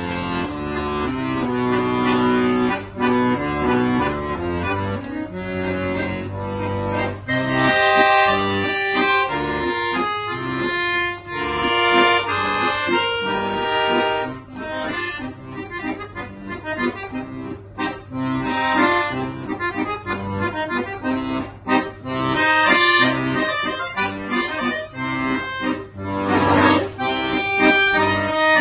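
Solo accordion playing a piece in chords and quick runs of notes over a steady bass, moving up into a higher, louder register about seven seconds in.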